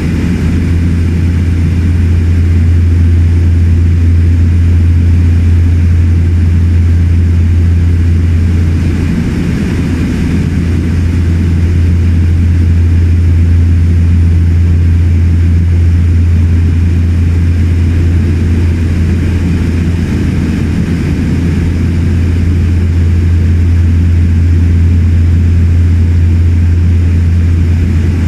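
Cabin noise of a de Havilland Canada Twin Otter in cruise, heard from inside the cabin: its two PT6A turboprop engines and propellers running steadily, a loud, even low drone.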